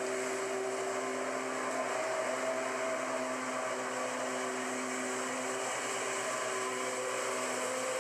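Lawnmower engine running steadily at an unchanging speed.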